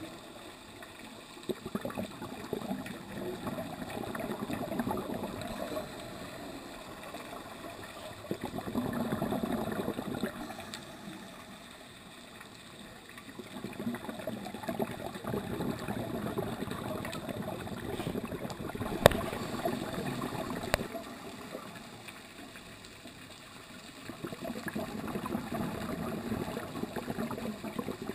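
Scuba diver's exhaled bubbles from the regulator, a muffled gurgling rumble that swells with each breath out every several seconds and fades between breaths. A single sharp click about nineteen seconds in.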